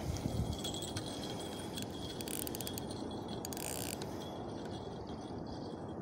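Spinning fishing reel being cranked, its gears giving a steady fine ticking as line is wound in.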